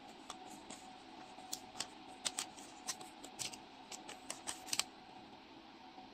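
Paper receipt crackling and rustling as fingers handle it: irregular sharp crinkles for the first five seconds or so, over a faint steady hum.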